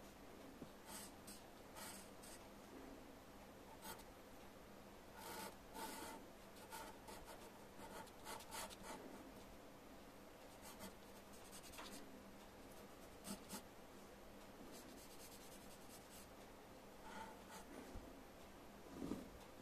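Faint pencil strokes scratching on paper, coming in short irregular groups as a face is sketched by hand.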